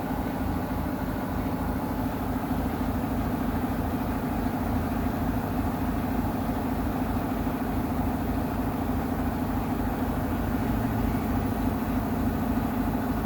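Samsung WW90DG6U25LEAH front-loading washing machine running with a steady loud hum over a low rumble, a noise the owner finds too loud for a new machine.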